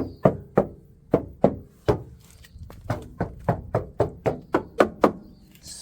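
A quick series of sharp knocks, about three a second and unevenly spaced: knuckles rapping on the steel body panels of a 1977 Holden LX Torana to check for rust. The panels sound solid.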